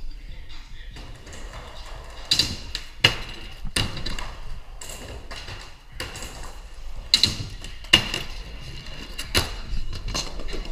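Skateboard wheels rolling on ramps and floor, broken by several sharp knocks of the board hitting the ramp surfaces, the loudest in two groups of three.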